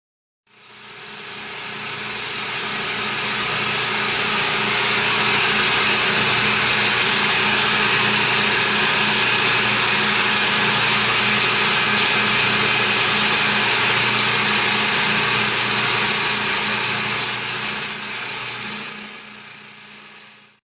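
A CNC milling machine running steadily, a dense mechanical noise with a few held tones. It fades in over the first few seconds and fades out near the end.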